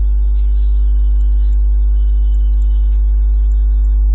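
Steady low electrical mains hum with a stack of buzzing overtones above it, unchanging throughout.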